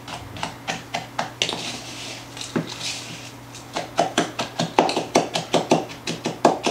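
A spoon scraping and tapping against a bowl as it crushes and stirs butter-coated gingersnap cookie crumbs. The clicks are scattered at first, then come faster and louder, about three or four a second, from about four seconds in.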